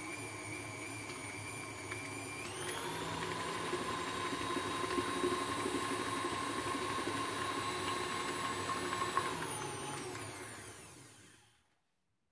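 KitchenAid Artisan stand mixer motor whirring as its flat beater mixes eggs and powdered sugar. The speed is stepped up about two seconds in; near the end the whine drops in pitch and the mixer winds down to a stop.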